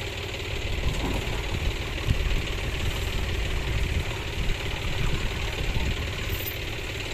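Farm tractor's diesel engine running under load as it pulls a trolley heaped with sand, an uneven low rumble that swells and dips from about a second and a half in.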